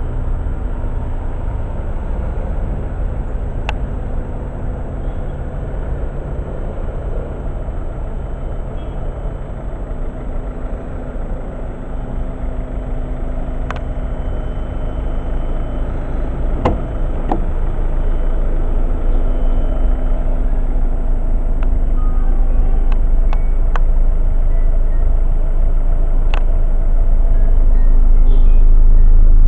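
Volvo V50's 1.6-litre four-cylinder turbodiesel idling steadily, getting louder toward the end, with a few sharp clicks.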